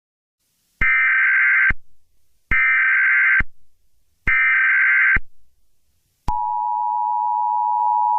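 Emergency Alert System broadcast tones: three short, shrill bursts of SAME data header, each about a second long. About six seconds in, the EAS attention signal starts, a steady, lower two-tone beep.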